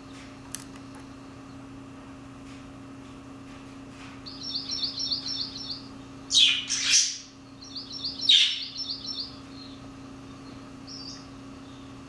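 Recorded songbird song, an anianiau's quick trills, playing through a laptop speaker in two runs of rapid notes. Two much louder, harsher bird calls cut in about six and eight seconds in.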